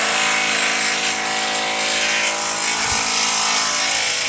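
A motor running steadily, with a pitched whine over a hiss.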